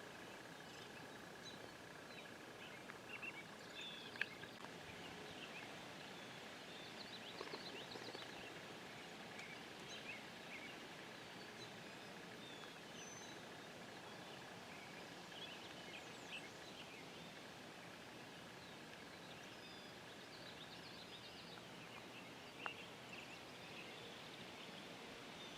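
Faint outdoor quiet with scattered birds chirping and singing at a distance, short calls coming every second or so. A faint steady high-pitched tone runs underneath and stops near the end, and there are a couple of soft clicks.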